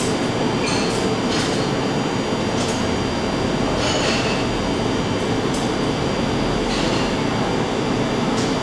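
Steady, loud rushing background noise, with a spatula scraping cream out of a plastic bowl in short strokes about every second or so.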